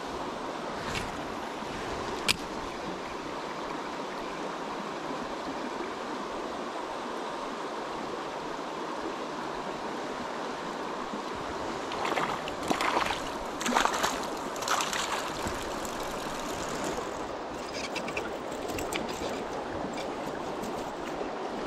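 Shallow river flowing steadily over stones. A single sharp click comes about two seconds in, and bouts of splashing in the water come about twelve to fifteen seconds in and again near the end.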